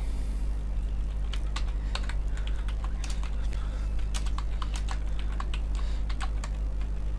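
Typing on a computer keyboard: a quick, irregular run of key clicks as a sentence is typed, over a steady low hum.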